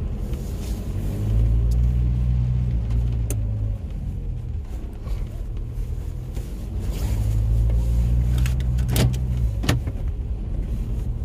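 Car driving on a wet road, heard from inside the cabin: a steady low rumble of engine and tyres that swells twice, with a few sharp ticks.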